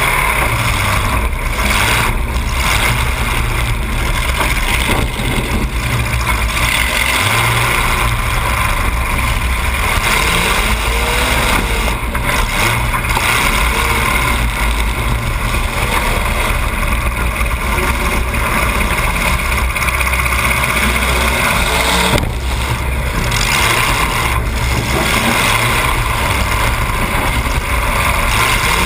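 Demolition derby car's engine running loud and steady, heard close up from a camera mounted on the car, with a few brief revs.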